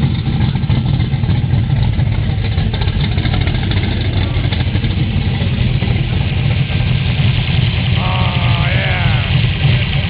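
Big-block V8 of a Chevrolet Nova race car idling steadily and loudly.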